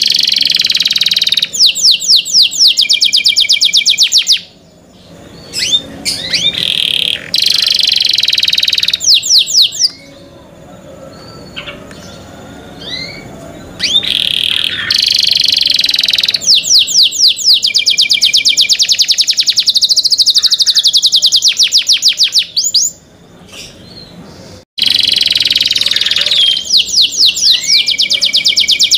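Domestic canary singing a clear, loud song of fast trills of repeated notes and rolling phrases. The song is broken by a few short pauses, with a quieter stretch of scattered notes midway.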